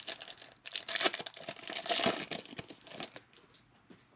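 Foil trading-card pack wrapper being torn open and crinkled by hand: a dense crackle for about three seconds that dies away near the end.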